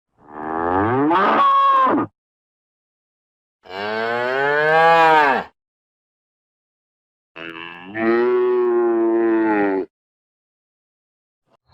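Cow mooing: three long calls, each about two seconds long, with silence between them. The first call rises in pitch, the second rises and falls, and the third is held level.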